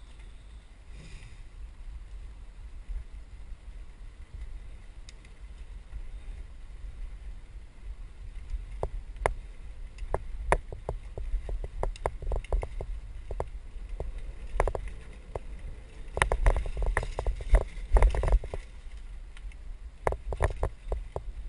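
Mountain bike rattling and clattering as it rides over a rough dirt trail, with a low wind rumble on the microphone. The sharp knocks come more often in the second half and bunch up thickly a few seconds before the end.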